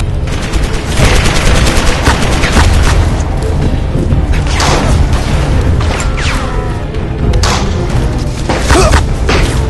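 Battle sound effects: a constant low rumble of booms with sharp gunshots scattered through, over a music score.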